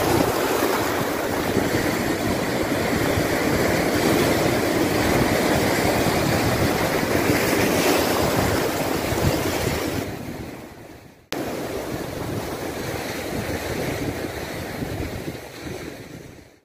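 Ocean surf breaking in steady waves, with wind buffeting the microphone. The sound fades away about ten seconds in, comes back abruptly, and fades away again near the end.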